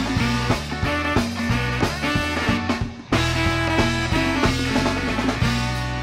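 Background music with guitar and a steady beat, dropping out briefly about three seconds in.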